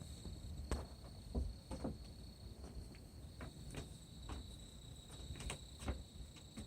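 Steady high-pitched trilling of night insects, with scattered light clicks and crunches of footsteps through the woods' edge. No squealing animal call is heard.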